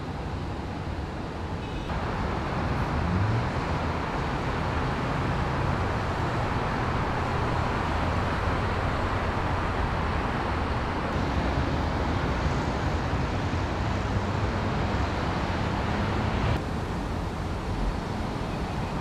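Steady road traffic noise, a continuous rumble and hiss of passing vehicles. It steps up abruptly about two seconds in and drops back near the end.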